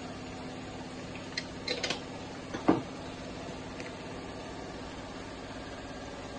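Steady mechanical hum of a motor or fan, with a few light clicks and one sharper knock a little before the middle.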